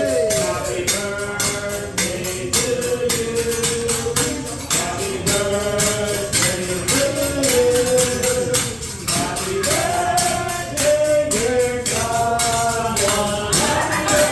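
Music with a singing voice holding and sliding between notes over a steady tambourine or shaker beat of about four strokes a second.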